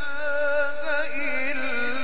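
A man's voice holding one long melodic note in mujawwad-style Quran recitation, steady at first and then wavering in quick ornamental turns from about halfway through.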